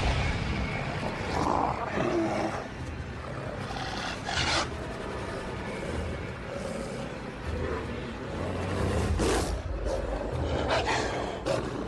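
Wolves growling low and continuously in the dark, with several brief rushing sounds breaking over it.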